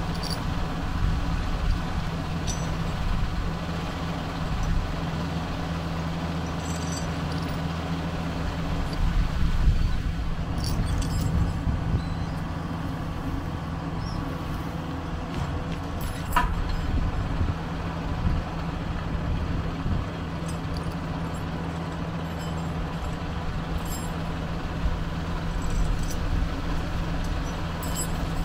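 Kubota L4060 tractor's diesel engine idling steadily, with a few sharp clicks over it and a brief swell about a third of the way in.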